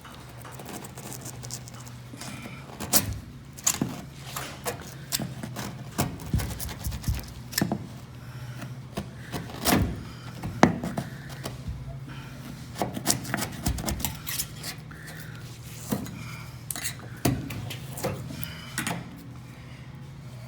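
Irregular knocks, taps and clanks of a hollow steel knock-down door frame being handled and worked into place around drywall, the loudest about three seconds in and near the middle, over a steady low hum.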